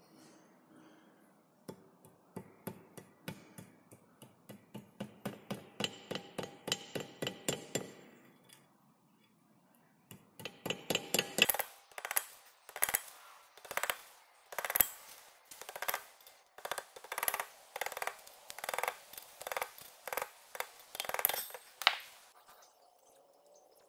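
A small hammer tapping on copper wire over a steel slug resting on a vise, flattening the wire onto the slug's end. First comes a run of light, ringing taps at about three to four a second. After a short pause comes a longer run of louder, uneven taps.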